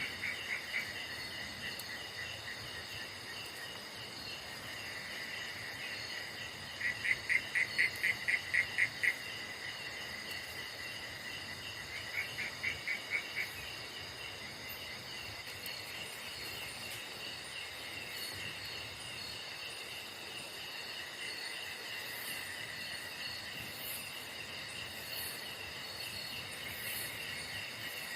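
Night chorus of crickets and other insects, several steady high trills overlapping. Twice a louder pulsing call breaks in, about five pulses a second, first for about two seconds and then more briefly.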